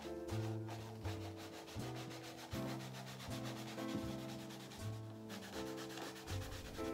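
Cloth rubbing oil into a leather belt pouch in quick, repeated back-and-forth strokes, over soft background music.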